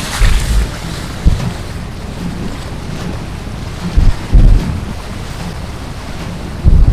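Storm wind blowing hard across the microphone: a steady rushing noise with heavy low buffeting thumps from gusts several times.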